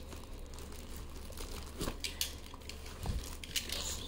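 Product packaging rustling and crinkling as it is handled, with scattered light clicks and a soft thump about three seconds in.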